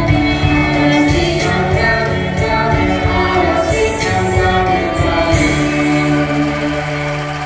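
Group of voices singing a Janger song in chorus over a rhythmic accompaniment, ending on a long held note.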